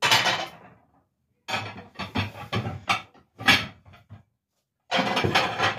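Plates clinking and clattering as they are moved about in a kitchen cabinet, in several separate bursts of knocks.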